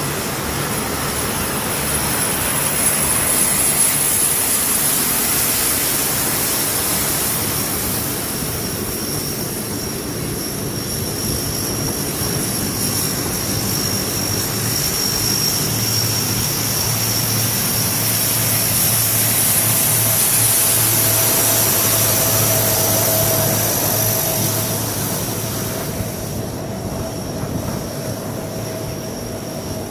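Several C-130 Hercules turboprop transports taxiing past: a steady propeller drone with a high-pitched turbine whine. It swells twice as aircraft come close and eases off near the end.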